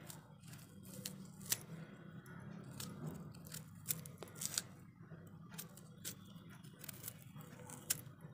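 The hard skin of a raw water chestnut (singhara) being scraped and pried off with the point of a knife: faint, irregular scrapes and sharp clicks, several seconds apart, over a steady low hum.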